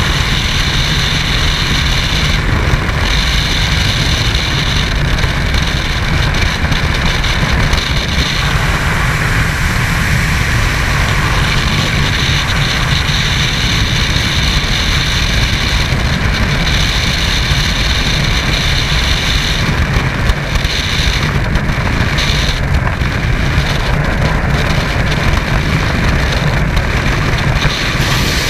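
Loud, steady rush of wind in skydiving freefall, buffeting the body-mounted camera's microphone.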